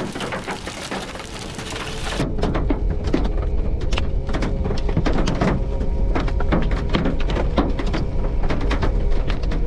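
Rain falling with a steady hiss, then, about two seconds in, inside a vehicle: hailstones pelting the roof and cracked windshield in rapid, irregular knocks over a low rumble of wind.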